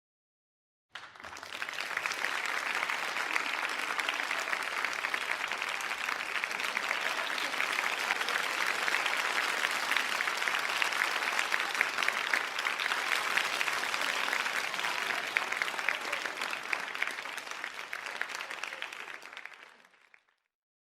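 A crowd applauding: many people clapping in a dense, even patter. It starts abruptly about a second in, holds steady, then tapers off and fades out near the end.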